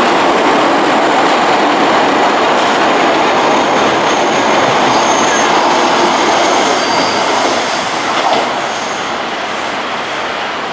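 CAF metro train running by with a loud, steady rolling noise, and thin high wheel squeals a few seconds in; the noise eases off near the end.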